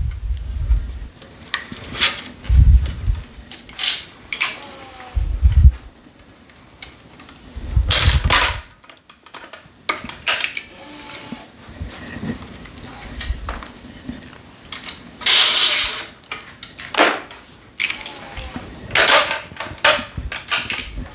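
Hands working at a tennis racket stringing machine: several sharp knocks with a dull thud in the first eight seconds, then string swishing and rustling as it is pulled through the cross strings, with scattered clicks from the machine.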